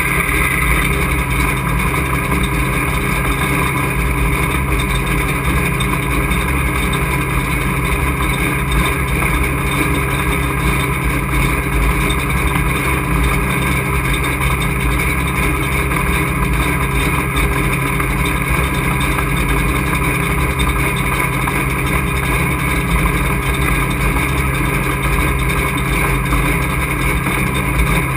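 Race truck engine heard from inside the cockpit, running steadily at one unchanging pitch.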